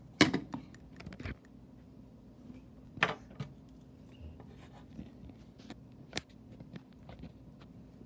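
Pencil and paper being handled and written on: a few sharp knocks and taps, the loudest about a quarter second in and another about three seconds in, with faint pencil scratches on paper between them.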